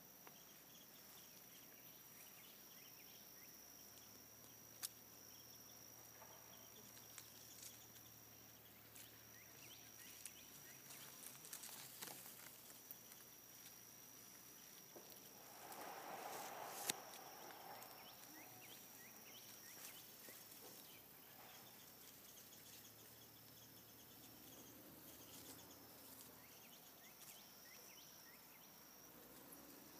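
Faint, steady high-pitched insect trill that stops and restarts every few seconds, with a few faint clicks and a short rustle about halfway through.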